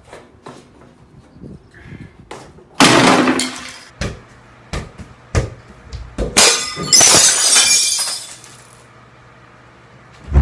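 A football being kicked and tapped, then two crashes of something breaking. The first crash comes about three seconds in. The second, longer one a little after the middle is glass shattering, its pieces tinkling for about two seconds.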